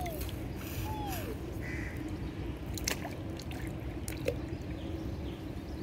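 Water trickling and lapping in a small toy pool, with a faint steady hum underneath. Two short falling squeaks come in the first second, and a few small clicks come about three and four seconds in.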